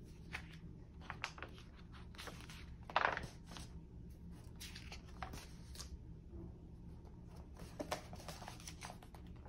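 Pages of a paperback picture book being opened and turned by hand: a run of soft paper rustles and swishes, the loudest swish about three seconds in.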